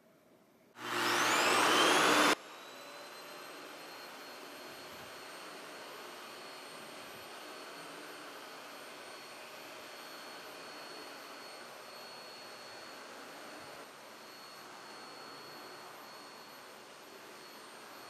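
Canister vacuum cleaner switched on about a second in, its motor whine rising as it spins up. After a second and a half at full loudness it drops suddenly to a quieter, steady running hum with a thin high whine.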